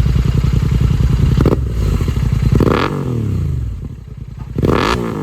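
Royal Enfield Continental GT 650's parallel-twin running loud through a Red Rooster aftermarket exhaust with the dB killer removed. It is held at raised revs for over a second, then blipped twice, about 2.5 and 4.5 seconds in, with the revs falling away after each blip.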